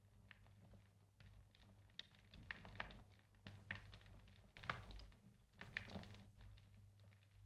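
Faint fire crackling: irregular sharp snaps and pops of varying strength, over a low steady hum.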